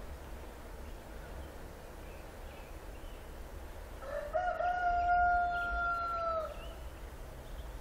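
A rooster crows once, about four seconds in: a short stepped start, then a long held note of about two seconds that falls away at the end.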